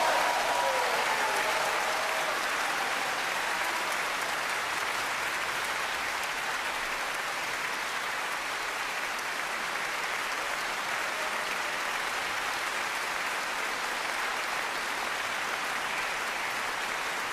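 Concert audience applauding at the close of a performance, loudest at first and then settling into steady, even clapping.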